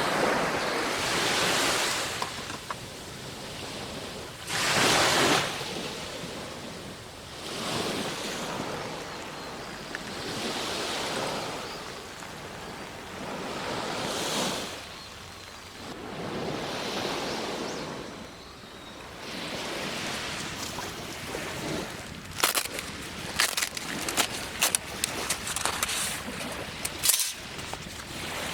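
Waves washing onto a beach, the surf swelling and falling back every few seconds. In the last several seconds a rapid run of sharp clicks and clinks joins it.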